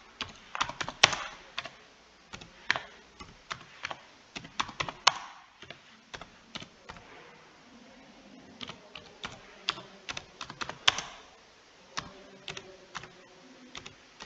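Typing on a computer keyboard: irregular key clicks in uneven runs with short pauses between them.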